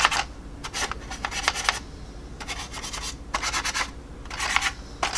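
Blending brush rubbing quickly back and forth over a plastic scale model's surface, working oil paint into the panel lines. The strokes come in short bursts with brief pauses between.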